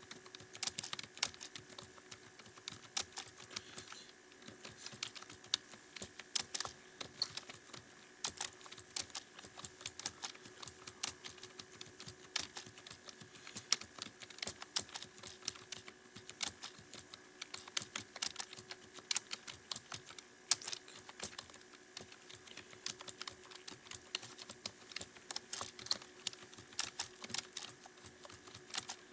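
Computer keyboard keys being typed on at a steady practice pace, irregular clicks several a second, over a faint steady hum.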